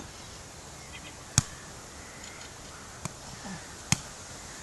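A volleyball struck by players' hands three times in a rally: sharp slaps about a second and a half in, at about three seconds and just before four seconds, the first the loudest.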